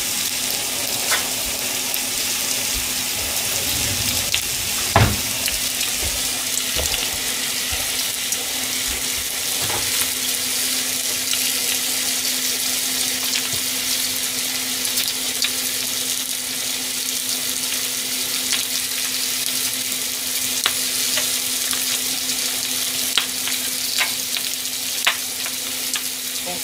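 Pork belly slices frying with vegetables in their own fat in a frying pan, a steady sizzle. Light clicks of utensils come now and then, with a louder knock about five seconds in, over a steady low hum.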